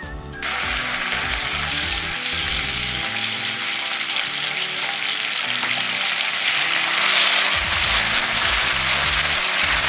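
Food sizzling in hot olive oil in a frying pan, starting suddenly about half a second in and getting louder about seven seconds in, with stirring, over background music.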